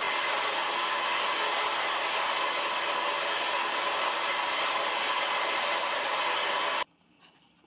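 Record Power SS16V scroll saw running and cutting a thin wooden board, a steady machine noise that cuts off suddenly near the end.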